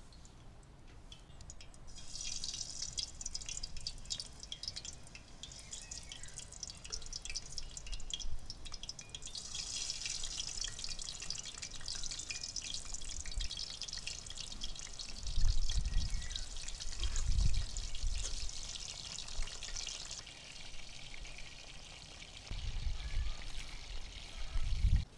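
Aubergine slices sizzling and crackling in hot oil in a frying pan, starting about two seconds in and easing off near the end. A few low rumbles come in the second half.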